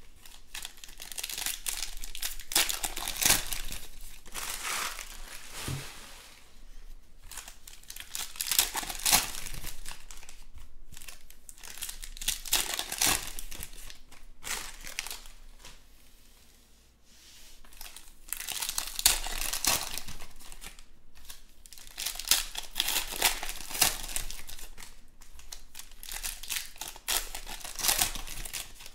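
Foil trading-card pack wrappers crinkling and tearing as packs are ripped open by hand, in repeated bursts with a quieter lull about halfway through.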